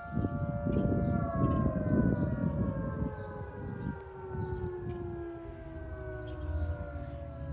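Outdoor tornado warning siren sounding a chord of several tones that starts to fall in pitch about a second in and keeps sliding slowly down as the siren winds down. A low rumbling noise runs beneath it, loudest in the first few seconds.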